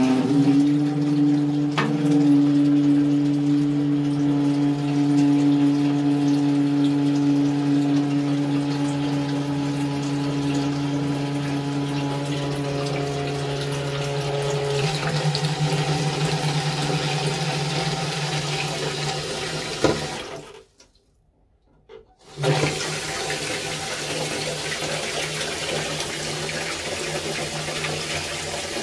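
Toilet cistern's ball cock (float-operated fill valve) humming with a steady drone over the hiss of water refilling the tank. It sounds like a hovercraft starting its engines: the noise of a faulty ball cock that needs replacing. The drone shifts in pitch partway through, the sound cuts out for about two seconds, then the water hiss carries on with a fainter hum.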